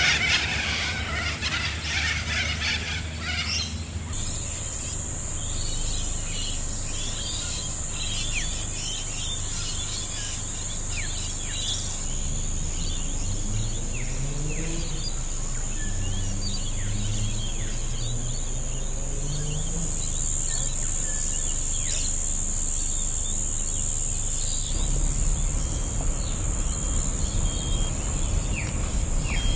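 Outdoor ambience: insects droning steadily at a high pitch, with scattered short bird chirps and a low, wavering hum beneath.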